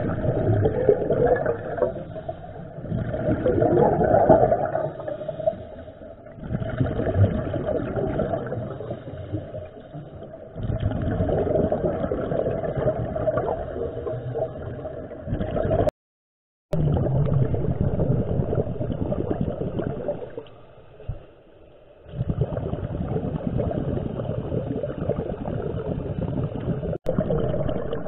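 Scuba regulator bubbles gurgling underwater, heard through the camera housing, in several bursts a few seconds long with short quieter gaps between them as divers exhale. The sound drops out entirely for a moment about halfway through.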